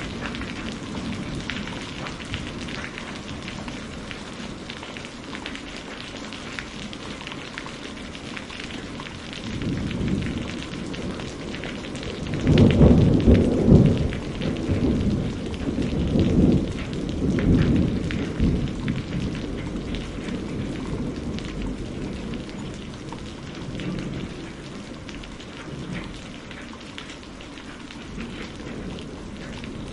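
Steady rain falling, with a long roll of thunder that builds about ten seconds in, is loudest a few seconds later, then rumbles away.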